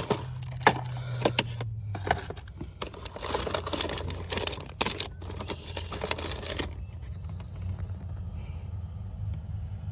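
Rummaging through a plastic tackle box: crinkling soft-plastic bait packets and clicking, rattling plastic trays. It stops about seven seconds in.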